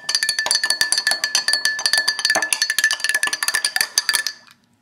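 A metal spoon stirring fast in a drinking glass of water, clinking against the glass several times a second so that the glass rings steadily; the stirring stops abruptly near the end.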